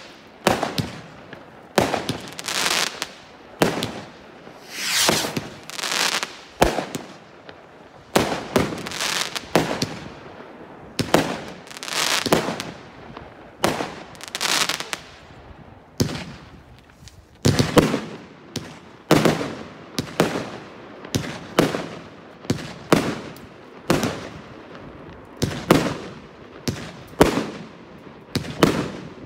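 Fireworks display: aerial shells bursting in a continuous string, a bang about every second, each fading away and some drawn out over a second or so.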